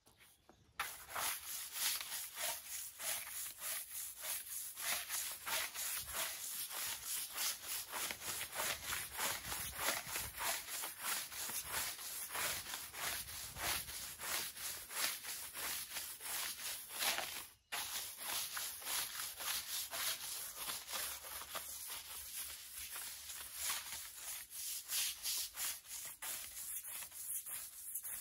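Stiff-bristled push broom scrubbing the slats of a roller shutter on wet, soapy concrete, in rhythmic back-and-forth strokes. The scrubbing starts about a second in and stops briefly once about two-thirds of the way through.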